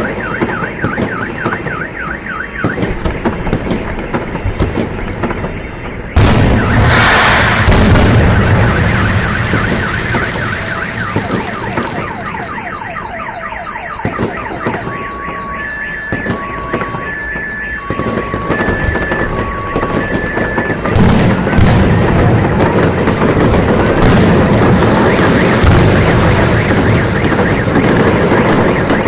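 Fireworks going off with repeated bangs and crackling, a loud burst of them about six seconds in. A car alarm sounds through its cycle of warbling and alternating two-tone beeps, set off by the blasts.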